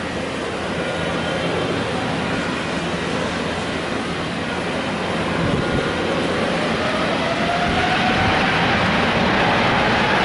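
Jet engines of a departing Boeing 777: a steady rumble that grows louder, with a whine rising in pitch over the last few seconds.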